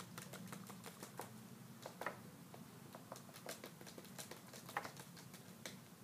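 A small glass nail polish bottle being shaken by hand to mix in added drops of colour: a faint run of irregular light clicks, several a second.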